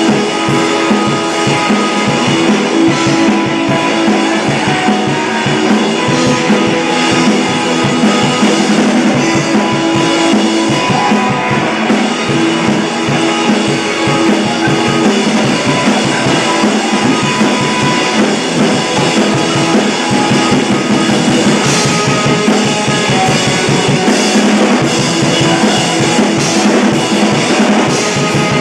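Live rock band playing, with a drum kit keeping a steady beat under guitar.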